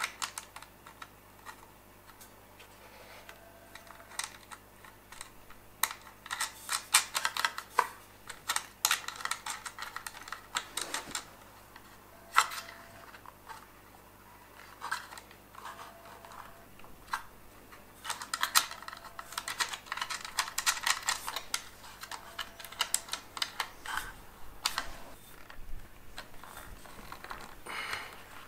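Irregular small clicks, taps and rattles of hand work on an air compressor's electric motor: plastic and metal parts of a replacement safety switch and its wiring being fitted and fastened. The clicks come in bunches, with one sharper knock about twelve seconds in.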